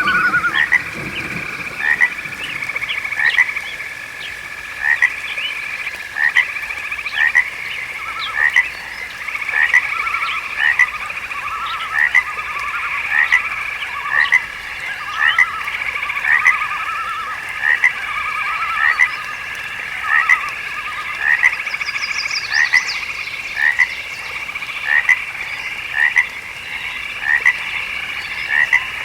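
Chorus of frogs croaking: short chirping calls repeating a little more than once a second over a steady high trilling drone, with rattling trills mixed in.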